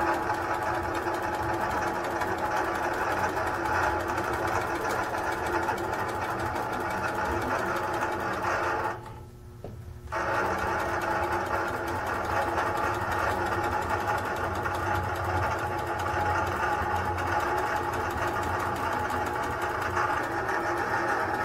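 Innova longarm quilting machine running steadily as it stitches a long basting stitch across the top edge of a quilt. It stops for about a second around nine seconds in, then starts again.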